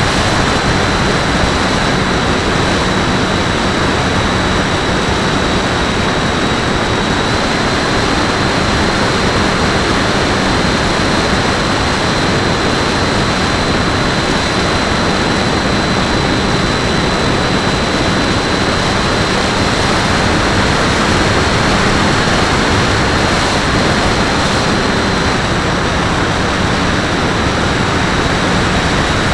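HobbyKing Walrus electric RC plane in flight: steady wind rush over the wing-mounted camera, with the thin high whine of the electric motor and propeller, which shifts slightly in pitch a few times.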